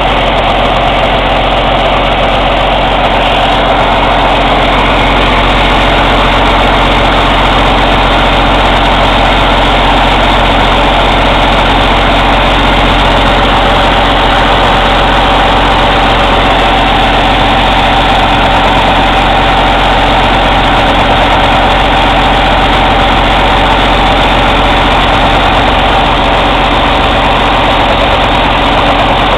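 Cummins ISX inline-six diesel engine idling steadily during an active DPF regeneration.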